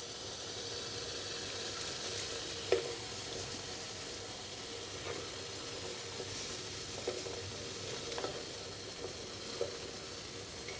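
Pot of water heating on a stove for boiling eggs: a steady hiss, with several light knocks against the pot that ring briefly, the loudest about three seconds in.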